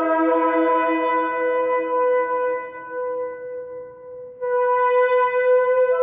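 Shofar (ram's horn) blowing: a long, steady blast that fades out about four seconds in, then a new blast starts abruptly just after.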